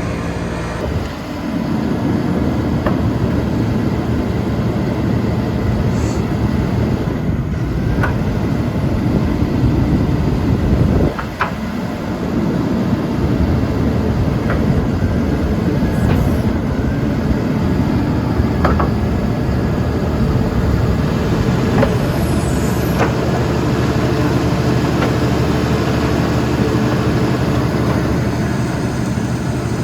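Vögele Super 1800-3i asphalt paver's diesel engine running steadily, with a brief dip about eleven seconds in and occasional light clicks from the machine.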